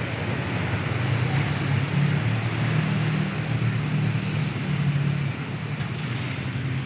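Road traffic with a steady low engine rumble from vehicles at a railway level crossing, easing off slightly about five seconds in.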